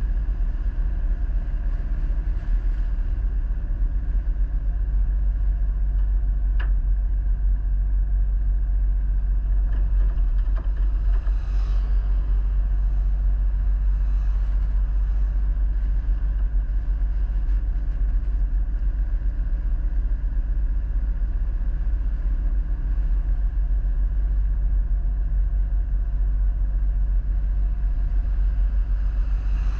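Motor vehicle driving at a steady pace: continuous engine and road rumble with no sharp changes in speed.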